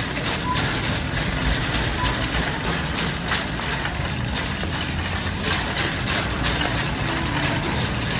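Steady low hum and background noise inside a large supermarket, with handling and walking noise from a phone camera carried down the aisles.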